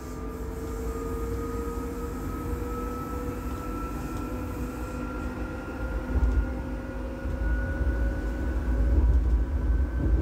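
Traction motors of an SZU Be 520 electric railcar whining, their pitch slowly rising as the train gathers speed, over a steady low running rumble, heard from inside the passenger saloon.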